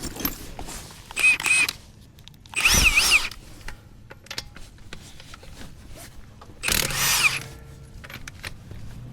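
Impact wrench running in three short bursts on a car's lug nuts, each with a high whine that rises and falls in pitch.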